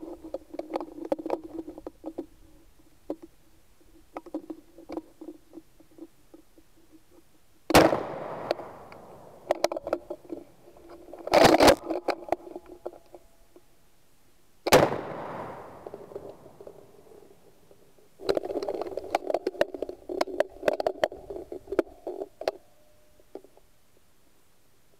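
Three shotgun shots, a few seconds apart, each ringing off after the blast. Between them there are stretches of rattling and clicking noise.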